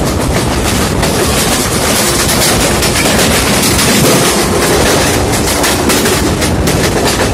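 Two Indian Railways passenger trains running side by side, heard from an open coach doorway: a loud, steady rush of wheels on rail with a quick clicking of rail joints that grows busier in the last few seconds.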